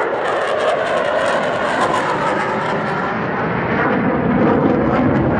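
An F-16 fighter jet's engine in flight: a loud, continuous jet roar with a ragged crackle in it that thins out after about three seconds.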